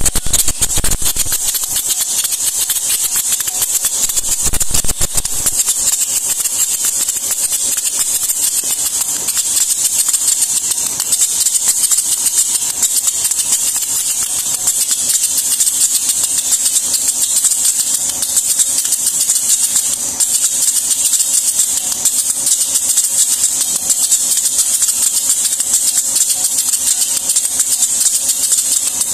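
Incense cone making machine running, a steady motor hum under a fast, continuous rattle, with a few low thumps in the first few seconds.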